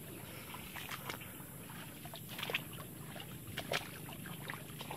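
Footsteps swishing and rustling through long grass: irregular soft strokes a few times a second, over a faint steady hiss.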